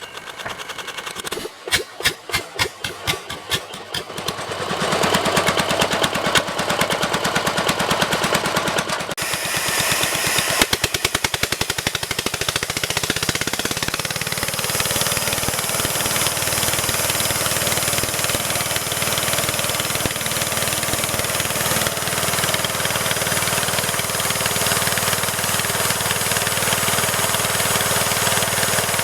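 Engine of a homemade tree-cutting machine chugging in separate strokes for a few seconds, then catching and running steadily.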